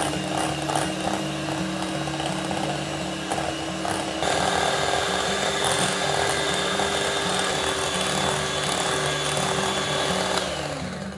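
Electric hand mixer creaming butter and condensed milk. The motor runs at low speed, steps up to a higher, louder speed about four seconds in, then winds down and stops near the end.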